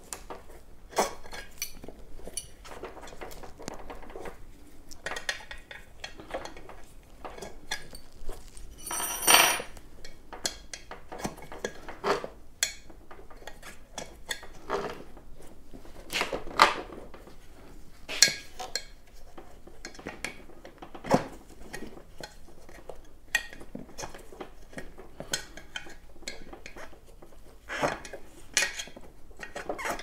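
Metal tire levers clinking and scraping against the metal rim of an electric unicycle's hub-motor wheel as the tire is pried off, in many short, irregular knocks and scrapes. About nine seconds in comes one louder clink that rings on briefly.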